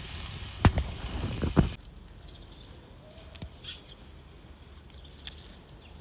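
Wood fire crackling and popping in a metal fire box, with a steady hiss and sharp pops. Less than two seconds in it cuts off abruptly to a quiet outdoor background with a few scattered faint ticks and clicks.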